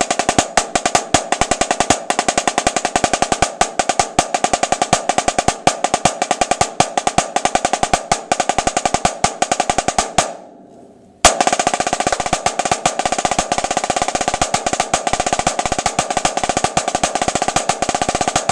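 Snare drum played with sticks in a rudimental solo passage: rapid open rolls and strokes with strong accents. It comes in two phrases, each opening with a hard accent, broken by a pause of about a second roughly ten seconds in.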